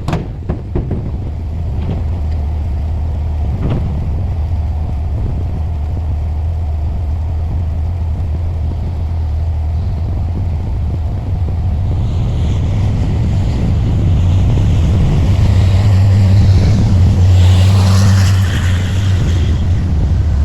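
Diesel engine of heavy earthmoving machinery running with a steady low rumble. It grows louder through the second half, and a higher rasping noise rides over it for a few seconds near the end.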